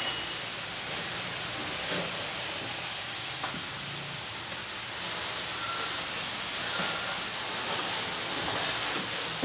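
Samsung microwave oven running on its grill setting: a steady whooshing hiss, with a few faint ticks.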